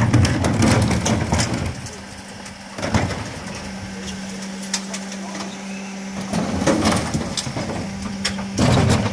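Refuse truck's rear bin lifter at work: loud rumble and clatter for the first two seconds, then a steady low hydraulic hum with a few knocks as a wheelie bin goes onto the lifter. A louder clatter comes near the end as the bin is raised and tipped into the hopper.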